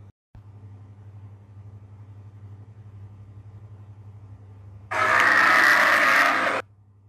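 A steady low hum with a brief dropout near the start. About five seconds in comes a loud hissing growl, under two seconds long, that starts and stops abruptly: a creature sound effect for an animated ankylosaur.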